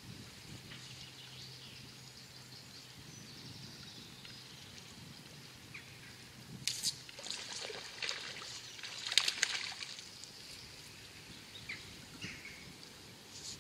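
River water trickling, with birds calling faintly. From about six to ten seconds in there is a cluster of sharp scrapes and swishes as fly line is handled, stripped and cast with the fly rod.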